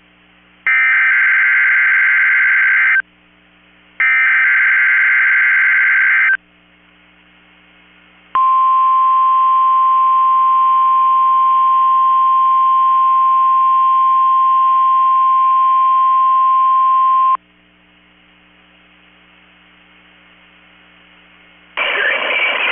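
NOAA Weather Radio Emergency Alert System test signal. It opens with the last two of three SAME digital header bursts, each about two seconds long with a short gap between them. After a pause comes the steady single-tone 1050 Hz weather radio warning alarm, held for about nine seconds, then a few seconds of faint radio hiss before the announcer's voice begins near the end.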